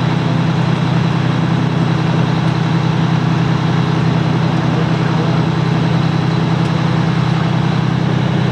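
An engine running steadily at a constant speed under a steady hiss.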